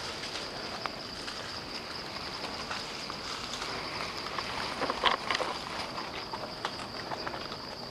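Steady high-pitched drone of insects, with scattered crackles throughout and a louder burst of rustling and crackling about five seconds in.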